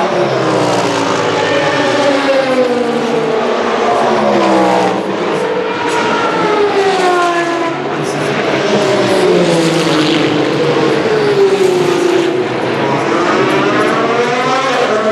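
LMGT3 race cars running at speed on the 100 dB-limited silencers, several engine notes overlapping. Their pitch falls and rises again and again as the cars pass and gear up and down.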